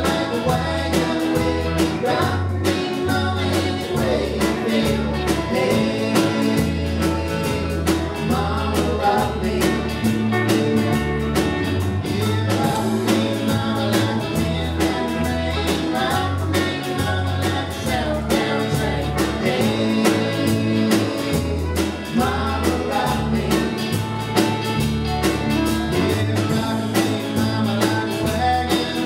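Live country band playing a song: strummed acoustic guitar, electric bass and drums, with vocals.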